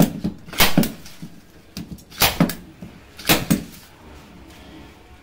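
Four pairs of sharp wooden knocks on a coffin lid, each pair quick, the pairs about a second apart, with a short low ring after each.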